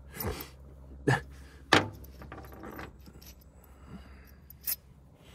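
Small metal hardware clinking in the hands, a few sharp separate clicks with the loudest a little under two seconds in, as a spare shear pin is fitted to replace the brush hog's sheared one.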